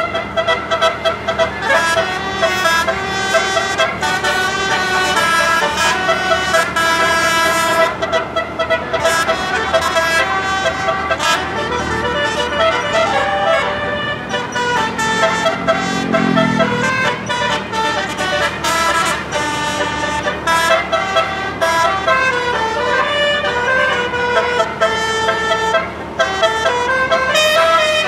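Indonesian bus 'telolet' multi-tone horns playing quick runs of stepped notes, one melody after another. A deeper tone slides down about two-thirds of the way through, and near the end the notes swoop down and back up.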